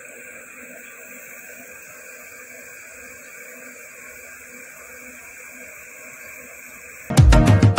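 A steady, faint background hiss with no events in it, then loud music with a strong beat cuts in suddenly near the end.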